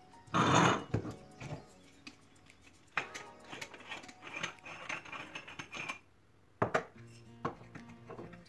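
Stovetop moka pot being handled and unscrewed: a loud rasping noise near the start, then metal clinks and knocks of the pot's parts, with a sharp knock near the end. Background music plays underneath.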